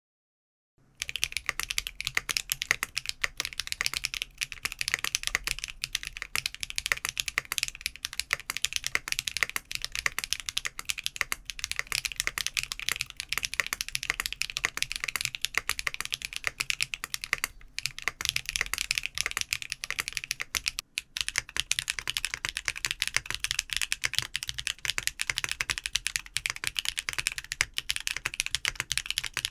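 Fast, continuous typing on a mechanical keyboard fitted with tactile switches, dense key clacks starting about a second in. About two-thirds of the way through, the sound turns thinner, with less low end, as if a different switch or board is being typed on.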